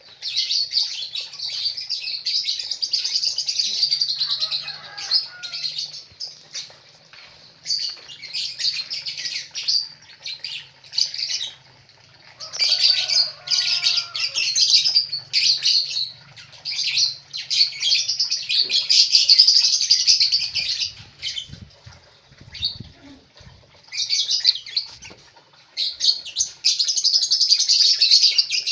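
Lovebirds chattering in rapid, high-pitched bouts of a few seconds each, with short pauses between.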